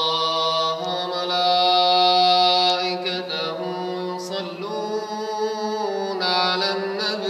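A single man's voice chanting a long, drawn-out devotional phrase of a tashweeq, the chant sung before the call to prayer, holding sustained notes that step and bend in pitch.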